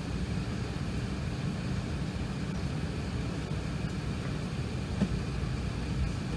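Cabin noise inside an Airbus A380 on the ground before takeoff: a steady low rumble with a hiss over it, and a short click about five seconds in.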